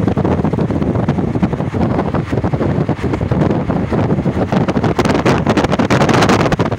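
Wind buffeting the microphone from a moving passenger train's open window, over the low rumble of the train running along the track. The wind gets harsher and hissier about five seconds in.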